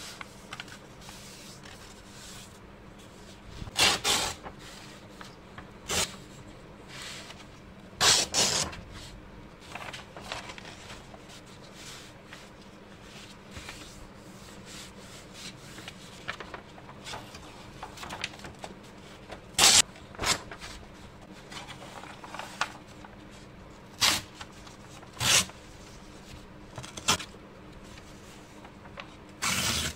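Watercolor paper being handled: short bursts of rustling and crinkling as the sheet is flattened, shifted and torn along a steel ruler, about ten times, with a faint steady hum between them. The longest burst comes near the end.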